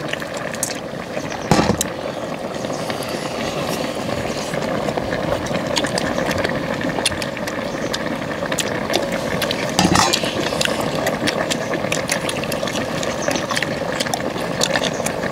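A big pan of pork back-bone stew bubbling steadily over a burner, with many small clinks of spoons and chopsticks against steel bowls. Two louder knocks come about a second and a half in and again near ten seconds.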